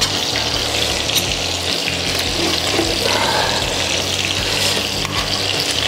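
Steady sizzling hiss of turkey liver frying in a pan.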